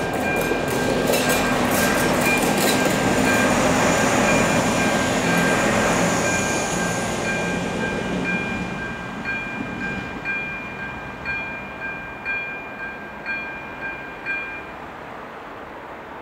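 Level-crossing electronic warning bell ringing steadily with a regular pulse, over the noise of a diesel multiple unit (two Stadler class 840 railcars) passing and fading away through the first half. The bell stops near the end as the crossing clears.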